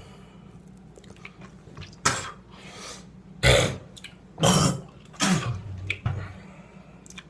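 A man's short, breathy exhalations and grunts, about five in a few seconds, from the pain of burning his lip with a soldering iron.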